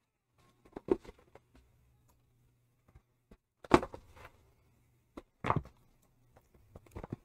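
Rolled diamond-painting canvas being slid out of its kit tube and unrolled by hand on a wooden desk: a string of short rustles and knocks, the loudest about three and a half seconds in, another near five and a half seconds.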